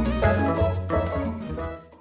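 Music with a bass line and pitched notes, fading out over the last second.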